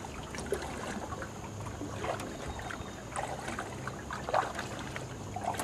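Water trickling and dripping around a canoe, with a few soft paddle splashes about a second apart.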